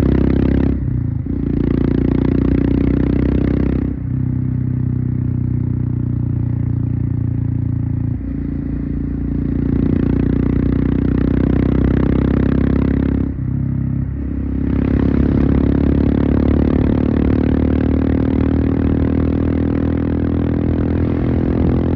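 Royal Enfield Himalayan's single-cylinder engine running through an aftermarket Devil Pro Evolution exhaust while riding, a steady exhaust note that dips briefly four times, as at gear changes, between stretches of pulling.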